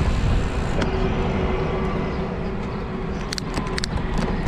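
Wind rushing over the microphone and road noise from riding a bicycle, with motor traffic going by. A quick run of sharp clicks comes about three seconds in.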